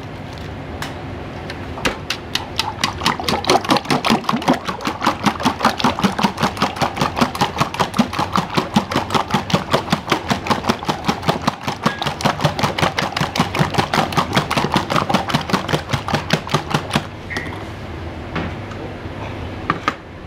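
A kitchen knife chopping rapidly and evenly on a cutting board, about five strokes a second. It starts about two seconds in and stops a few seconds before the end, over a steady kitchen background.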